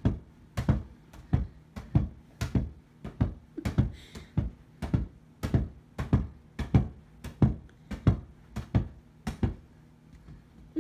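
An inflatable beach ball bouncing over and over in a steady rhythm, a thump about every 0.6 seconds. The thumps stop shortly before the end.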